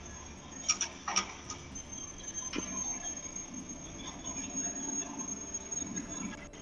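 Faint ambient sound picked up by a doorbell camera's microphone, under a steady high-pitched electronic whine, with a few sharp clicks about a second in and again around two and a half seconds in.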